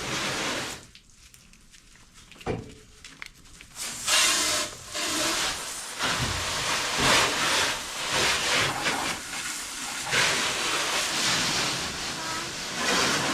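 Water spray hissing onto a car as it is rinsed off. It comes in uneven surges, after a near-quiet pause of a few seconds near the start.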